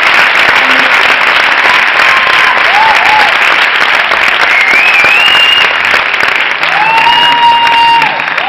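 Theatre audience applauding steadily, with several long high-pitched calls from the crowd rising above the clapping.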